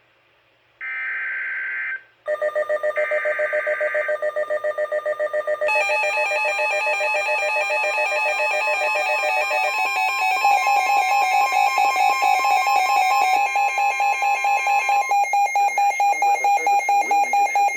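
NOAA Weather Radio emergency alert: short screeching bursts of the SAME digital header in the first few seconds, then a loud, rapidly pulsing electronic alarm tone that sounds on until the severe thunderstorm warning is read.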